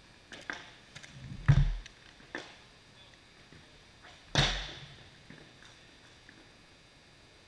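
A few light knocks and dull bumps, then one sharp crack about four and a half seconds in that rings out with a long echo in a large arena.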